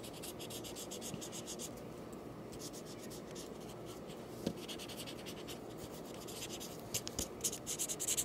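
Marker tip scribbling back and forth on paper: quick scratchy strokes, several a second, easing off after about two seconds and picking up again near the end.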